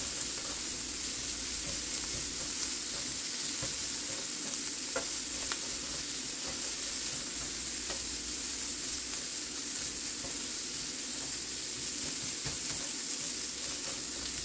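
Small pieces of shrimp sizzling steadily in a lightly oiled nonstick frying pan as they are tossed and stirred with tongs, with a few light clicks along the way.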